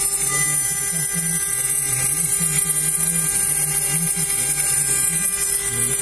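CNC router's 800-watt spindle whining steadily as its end mill cuts aluminium at a slow 200 mm/min feed, cooled by a water-and-air mist spray. Under the whine a lower hum steps up and down in pitch every fraction of a second.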